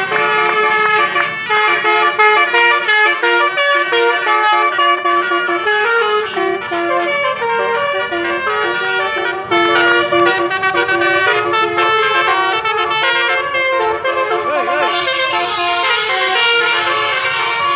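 Bus 'telolet' multi-tone air horn playing a melody of short stepped notes, blown repeatedly. About 15 s in, the sound turns brighter and higher.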